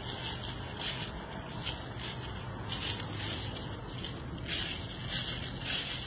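Footsteps walking through a thick layer of dry fallen leaves: a crunching rustle about once a second over a steady low rumble.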